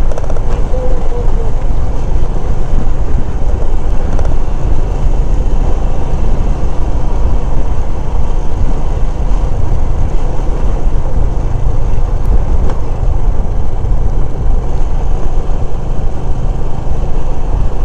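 Motorcycle riding along at steady speed: a constant loud rush of wind on the action-camera microphone, with the engine running underneath.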